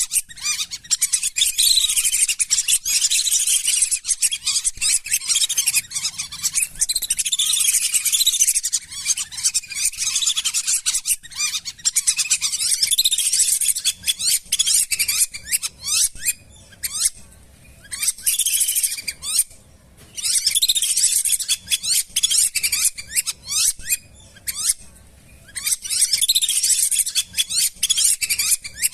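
Flock of lesser whistling ducks calling: a dense chorus of quick, high whistles, each dropping in pitch, broken by a few brief lulls.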